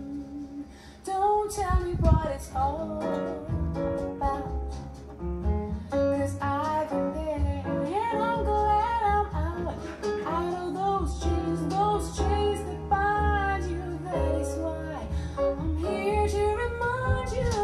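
A song with a singer over plucked guitar and bass, played back through JBL L77 loudspeakers driven by a DIY EL84 push-pull valve amplifier. It starts softly and fills out about a second in.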